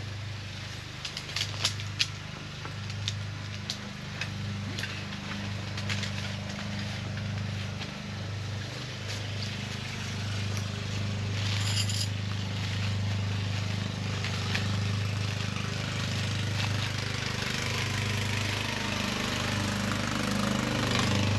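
A steady low engine hum from a motor running in the background, growing slightly louder. Scattered sharp clicks and a brief crackle come from tent pegs and gear being handled.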